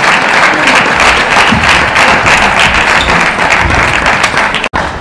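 Spectators applauding after a point in a table tennis match, a loud dense clatter of clapping that stops abruptly near the end.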